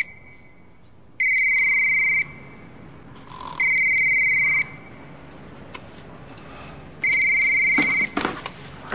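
Motorola cordless phone base unit's electronic ringer trilling. There are three rings of about a second each, a high warbling tone, with a longer gap before the third. A couple of sharp clicks follow near the end.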